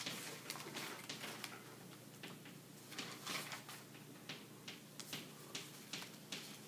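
Chalk on a chalkboard as someone writes: faint, irregular taps and short scratchy strokes, a few a second.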